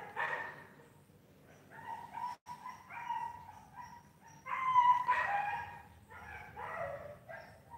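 A dog whining and yelping in several short bouts, the loudest about halfway through.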